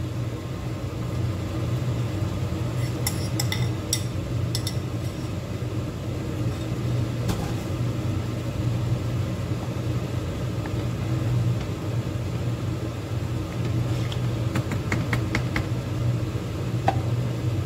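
A pot of crab in coconut gravy boiling on a gas hob: a steady low rumble. A few light clicks of utensils on the pot come a few seconds in, and a wooden spatula knocks against it several times near the end.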